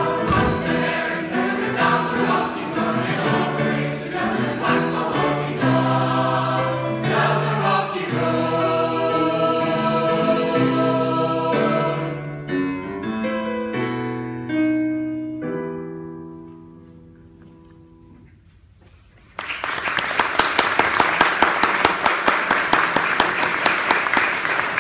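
High school mixed choir singing an Irish folk song a cappella; the final chord ends about two-thirds of the way in and dies away in the stone hall's reverberation. After a brief lull, applause breaks out and continues.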